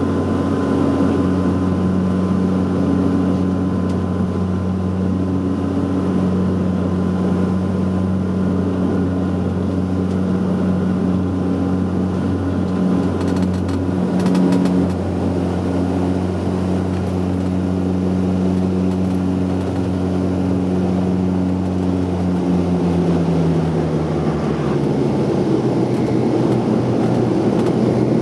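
Saab 340's twin turboprop engines and propellers heard inside the cabin: a steady low drone with a faint high whine that fades out about halfway. Near the end the propeller hum drops in pitch as engine power is reduced.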